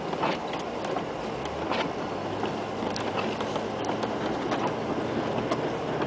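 Interior noise of a 1997 Land Rover Discovery ploughing through deep snow: a steady wash of engine and driving noise, with irregular knocks and clicks over it.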